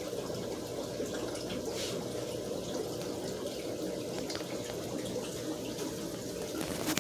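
Aquarium water running steadily: the continuous trickle and bubbling of tank filtration, with a few faint ticks.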